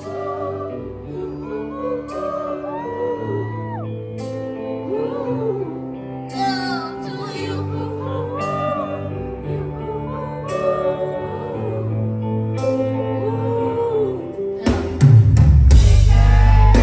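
Pop song with a singer over held keyboard chords; about fifteen seconds in, heavy bass and drums come in much louder.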